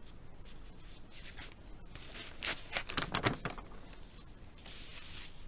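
Paper pages of an instruction booklet rustling as a page is turned: a burst of crisp rustles about two seconds in, then a softer slide of paper near the end.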